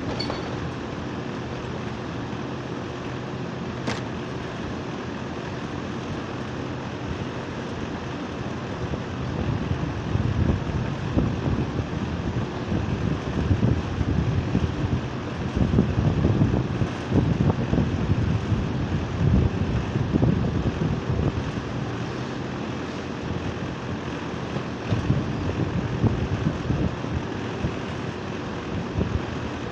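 Outdoor unit of a 4.5-ton split-type air conditioner running with a steady machine hum, with gusts of wind buffeting the microphone through the middle. There is a single sharp click about four seconds in.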